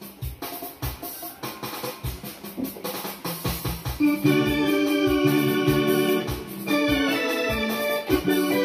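Yamaha PSR-S970 arranger keyboard played with an organ-like sound over a steady drum beat. It starts softer, then fuller held chords come in louder about four seconds in.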